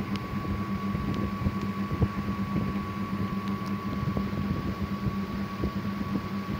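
Abdullah AE-390 dough kneader's electric motor running with a steady hum, with uneven low knocks and rattles underneath.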